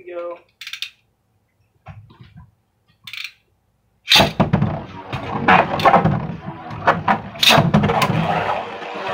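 Two Beyblade Burst spinning tops, one a custom Drago Fafnir, launched together with ripcord launchers about four seconds in. They then whir and rattle around a plastic stadium, with several sharp clacks as they collide.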